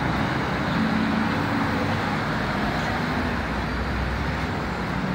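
Steady road traffic at a city intersection: cars driving across, a continuous hum of engines and road noise.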